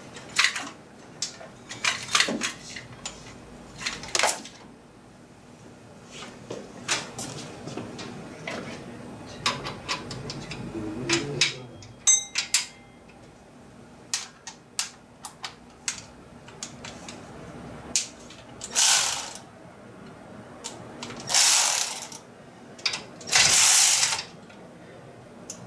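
Socket ratchet clicking as bolts are turned on an engine's accessory bracket, in three short runs in the second half, between scattered knocks and clinks of metal tools and parts.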